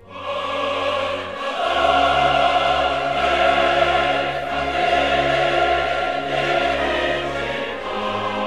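Background music: an orchestra with a choir singing long held notes. It swells up sharply at the start and grows louder again about two seconds in.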